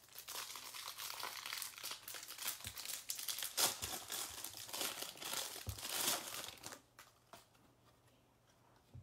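Clear plastic wrapper crinkling and tearing as it is peeled off a stack of trading cards; the crinkling stops about seven seconds in.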